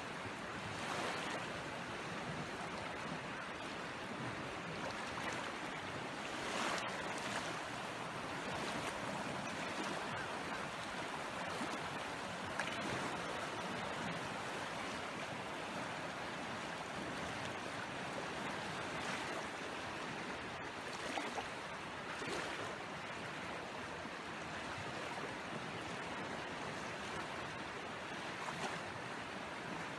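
Steady rushing of a rain-swollen river running high in flood.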